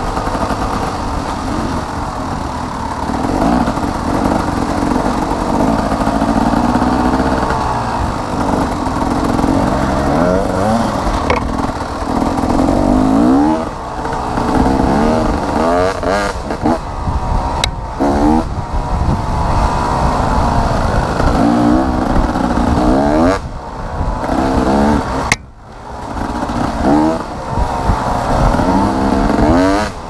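Dirt bike engine under way, revving up and down over and over as the rider accelerates and eases off, with about eight rising sweeps in pitch and a brief drop off the throttle a little over three-quarters of the way through.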